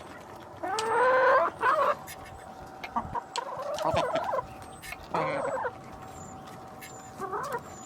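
Chickens clucking and calling in about five short bouts, the longest a drawn-out wavering call about a second in.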